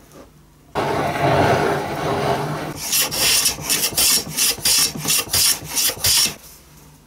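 Metal hand plane shaving a small strip of hardwood, flattening the inner face of a knife-handle half for gluing. There are about two seconds of continuous scraping, then about ten quick short strokes at roughly three a second, before it stops.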